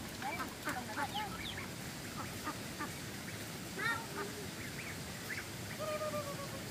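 A flock of ducks quacking: many short calls overlapping, with one longer held call near the end.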